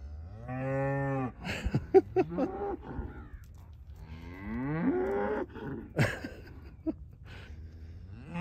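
Beef cattle mooing: two long moos, one about half a second in and one about four seconds in, with shorter calls between and a few sharp knocks.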